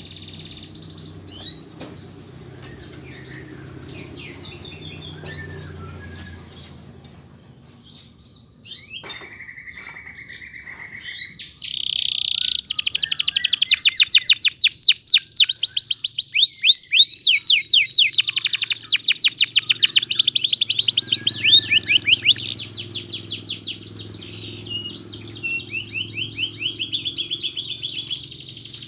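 Domestic canary singing: scattered soft chirps at first and a short held whistle, then, after about twelve seconds, a loud run of very fast rolling trills that eases somewhat near the end.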